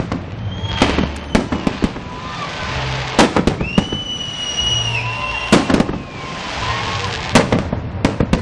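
Fireworks display: sharp bangs of bursting shells every second or two, over a steady rumbling haze, with a long high whistle held for about a second and a half in the middle.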